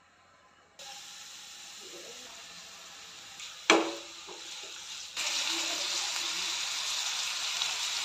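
Hot oil sizzling in a non-stick frying pan, first with whole spice seeds and then with minced chicken frying. A single sharp knock about a third of the way in, and from about five seconds in the sizzle is louder and steady.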